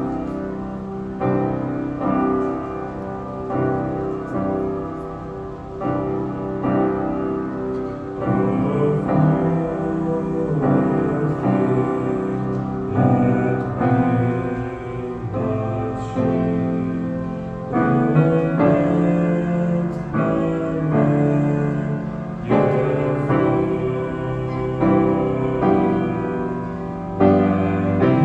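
Grand piano playing a slow hymn accompaniment in chords, each chord struck and left ringing, with a new one about every second.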